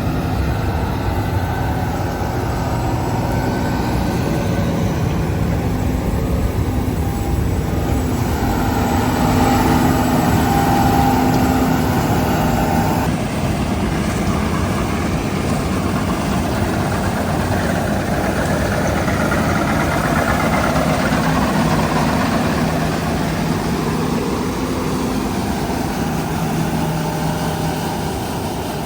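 Heavy farm machinery engine running steadily under load, with a shift in the sound about halfway through.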